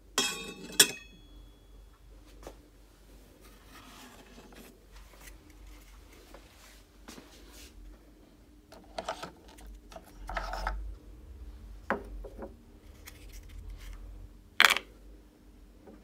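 Handling noises from the coffee machine's parts: a ringing clink of glass and metal at the start, a sharp click just after, scattered clicks and rubbing later on, and another sharp click near the end as the capsule holder is handled.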